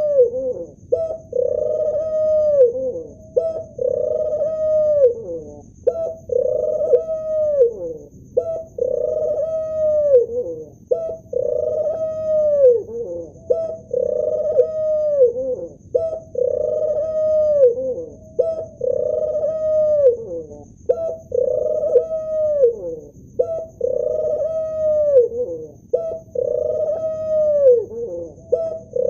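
Male ring-necked dove cooing over and over, a call about every two and a half seconds. Each coo is a short low note followed by a longer one that drops in pitch at its end.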